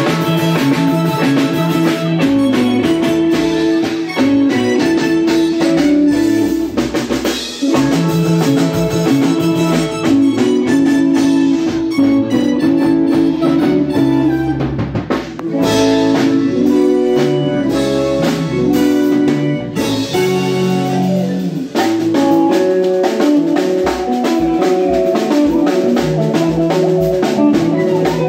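Live band playing upbeat Congolese dance music: electric guitar, keyboard and drum kit over a steady beat, with a regular kick-drum pulse coming forward near the end.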